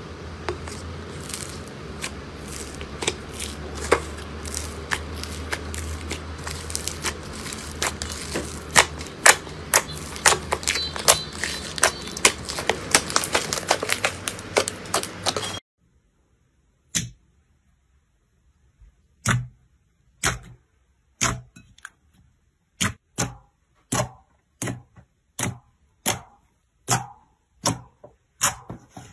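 Slime being squeezed and kneaded by hand: a steady crackling hiss full of sharp clicks that thickens toward the middle, then stops suddenly. After that, thick glossy slime pressed down by fingers gives single sharp air-pocket pops, about one to two per second, with silence between.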